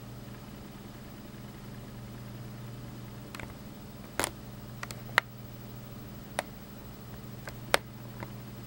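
Scattered sharp ticks of raindrops dripping onto a surface near the microphone, about nine at uneven intervals in the second half, over a steady low hum.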